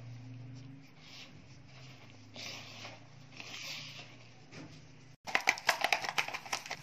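A hand rubbing and squeezing a crumbly gram flour and onion mixture in a plastic bowl, soft rustling strokes about once a second. About five seconds in this cuts off and a loud, rapid run of sharp clicks and clatter takes over.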